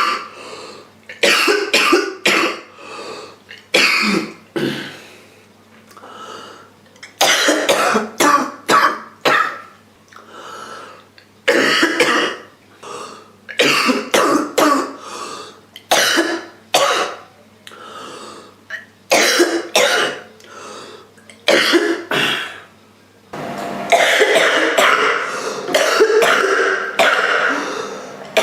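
A girl's rough cough from a cold: loud, harsh coughs in short bouts of two to four, every few seconds, with throat clearing. About three-quarters of the way through, the coughing runs on into a longer, unbroken spell.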